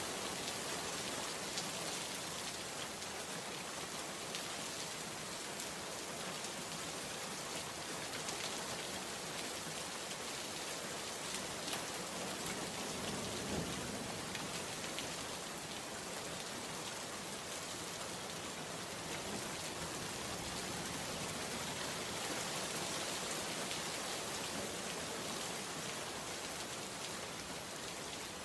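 Steady heavy rain falling: an even hiss with scattered individual drops ticking through it.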